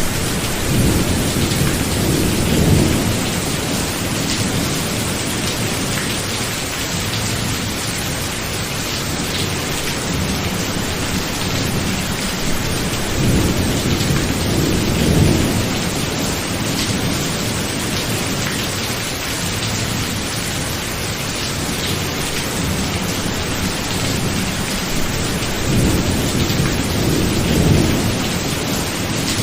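A medium rainstorm: steady rain falling, with three low rolls of thunder that swell and fade over a few seconds each, roughly twelve seconds apart.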